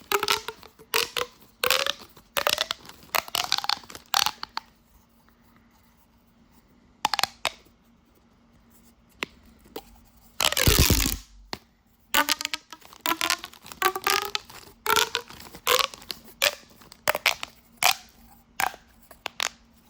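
Corrugated plastic pop tube fidget toy being stretched and squeezed, its ridges snapping with quick runs of crackly clicks. There is a louder rush of noise about halfway through.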